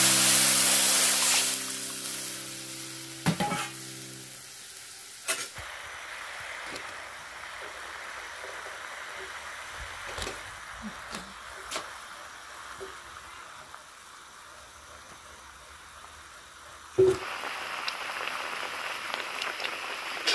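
Pakora fritters deep-frying in hot oil in a steel wok: a steady sizzle with a few sharp knocks of a wooden spatula against the pan, the sizzle louder again after a knock near the end. It opens with a brief loud rush as liquid is poured into the onion batter.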